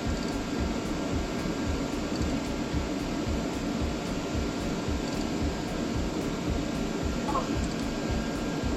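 Steady low hum and rushing noise with an uneven rumble underneath, with no distinct clanks or strikes.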